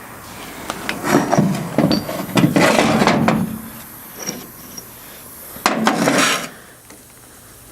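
Metal parts of a Dana 44 limited-slip differential carrier scraping and knocking as they are handled and worked by hand, in three bouts of rubbing and clunks.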